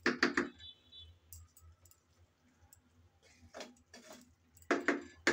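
Wooden spatula stirring thick vegetable khichuri in a pan, making short scrapes and knocks against the pan: three quick ones at the start, a couple around the middle and a cluster near the end, over a faint low hum.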